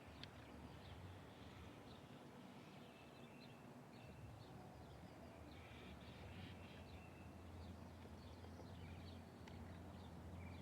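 Faint bird calls: short, scattered high chirps from several birds, over a low steady rumble.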